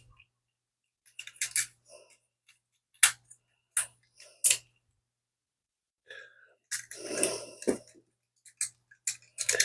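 Hard plastic parts of a Transformers Studio Series 86 Ratchet figure clicking and snapping as the legs are worked back into their slots. The legs do not stay slotted in properly. There are scattered sharp clicks, with a brief rustle of handling about seven seconds in.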